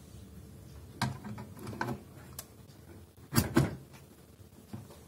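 Bread pan being lowered into an Arçelik Ekmekçim bread machine and pressed into its seat, giving a few knocks and clicks, the loudest a pair of knocks about three and a half seconds in.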